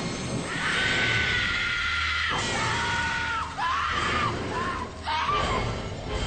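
A person screaming: a run of about five high-pitched screams, the first held for nearly two seconds and the later ones shorter, over music with a steady low bass.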